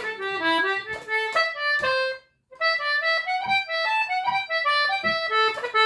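Anglo concertina playing a reel melody slowly, note by note, with quick ornamental grace notes. The playing stops briefly a little over two seconds in, then carries on.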